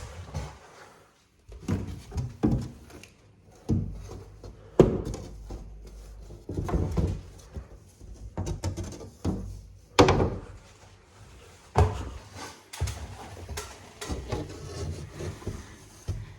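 Irregular hollow wooden knocks and thuds, spaced unevenly a second or two apart, as a person moves about and handles things in a cramped space.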